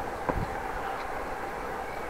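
Steady rolling noise of a bicycle being ridden, with one sharp knock shortly after the start.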